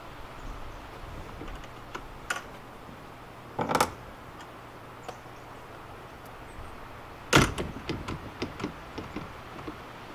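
Wooden fence gate pulled shut by its freshly tensioned torsion gate spring, banging closed about seven seconds in and rattling briefly as it settles. A couple of lighter knocks come a few seconds earlier, as the gate is worked open.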